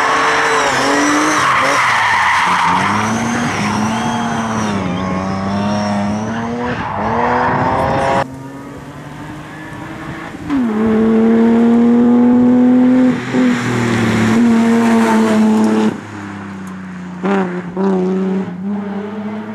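Race car engine running hard, its note climbing and falling again and again through gear changes and lifts, dropping away suddenly a couple of times. Tyres squeal in the first few seconds.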